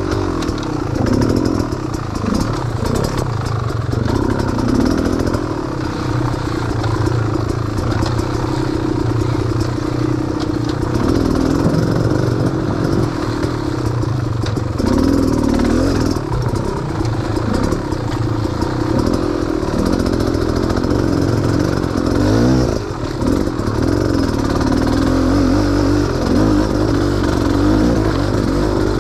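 A vehicle engine running at constantly changing revs, rising and falling, while being driven slowly over rough ground, with rattling and clattering from the vehicle.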